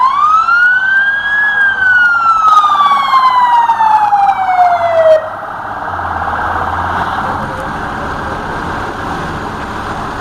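Fire engine siren sounding a wail, sweeping up quickly and then falling slowly, before cutting off abruptly about five seconds in. A steady engine and road rumble carries on after it.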